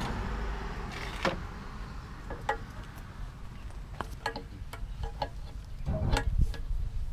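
Scattered light clicks and taps, about eight over several seconds, as a petrol hose from a roadside hand-operated pump is held in a motorcycle's open fuel tank filler during refuelling.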